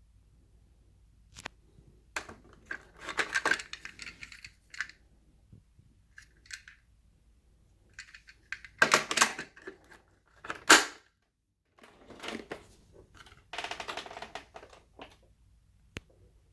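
Irregular clicks, rattles and knocks of objects being handled, with a sharp knock about ten and a half seconds in; no motor running.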